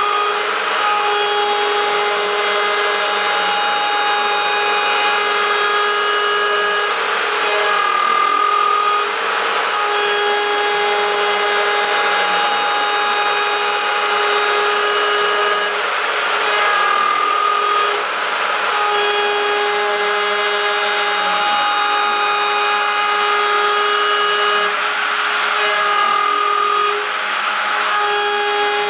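CNC router spindle running with a small end mill cutting a pocket in 6061 aluminium on an adaptive toolpath: a steady machining noise with several cutting tones that switch between pitches as the tool changes direction, the pattern repeating about every nine seconds.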